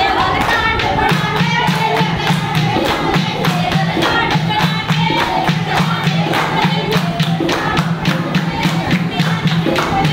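A group of women clapping in a quick, steady rhythm and singing, as for a Punjabi giddha dance.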